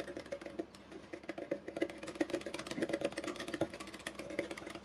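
Metal wire whisk rattling in rapid, uneven clicks against a ceramic bowl while stirring yeast and sugar into warm water.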